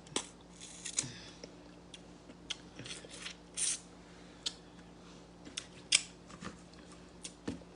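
Eating sounds from a stewed fish head: irregular wet clicks and smacks as it is picked apart and chewed, bones and all.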